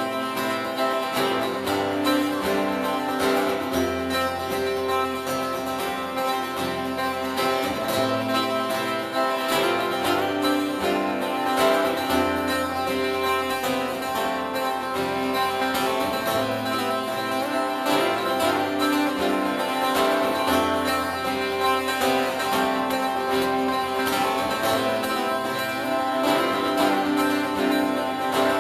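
Acoustic guitar played solo in a continuous instrumental passage, with no singing.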